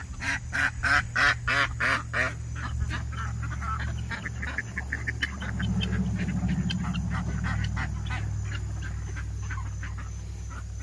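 A flock of domestic ducks quacking: a loud, fast run of quacks in the first two seconds, then softer scattered quacks.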